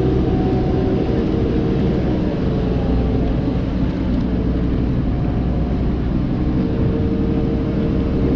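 Tour boat's engine running steadily at low speed, a continuous low drone with a steady hum.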